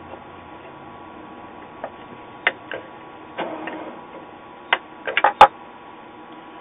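Scattered sharp clicks and taps from handling a circuit board and soldering iron on a workbench, with a short scrape about three and a half seconds in and the loudest cluster of knocks just past five seconds.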